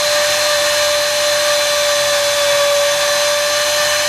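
Dremel rotary tool with a small wire attachment running at a steady high-pitched whine, scrubbing paint off the disc pad housing of a Lambretta TV175 brake hub. It runs at one fixed speed because its speed control is broken.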